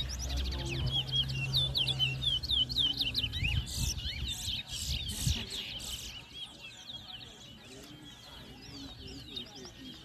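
Caged towa-towa (chestnut-bellied seed finches) singing in a song contest: fast runs of sweeping chirps and whistles, busiest in the first half. A low rumble sits under the first three seconds.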